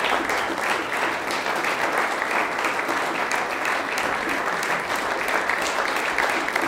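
A seated concert audience applauding steadily, a dense, even patter of many hands clapping.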